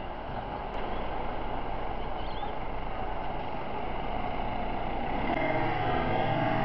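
Steady street traffic noise. About five seconds in, music with held tones fades in over it.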